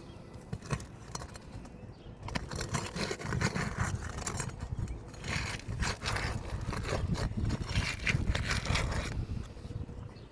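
Irregular gritty scraping and clicking on asphalt roof shingles, busiest from about two seconds in until near the end.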